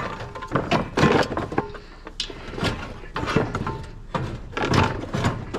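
Knocks, clatter and scraping of plastic and metal scrap being handled and pulled apart: a string of separate knocks with rattling scrapes between them.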